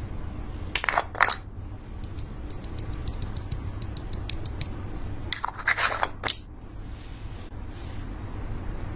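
Small plastic jars of nail-art glitter being handled: a pair of sharp plastic clicks about a second in, a run of faint quick ticks as glitter is tapped out of a jar, then a louder cluster of clicks and knocks a little past the middle, over a steady low hum.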